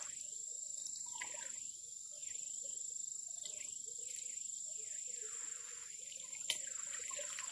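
Insects chirring in a steady, high-pitched drone, with a single sharp click near the end.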